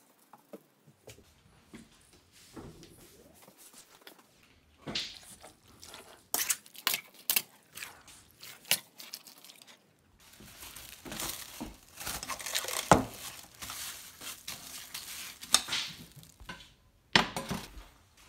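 A metal utensil clinking and scraping against a stainless steel mixing bowl while stirring sliced raw beef in a wet marinade, with scattered sharp clinks at first and denser scraping and squishing in the second half. A single sharp knock comes near the end.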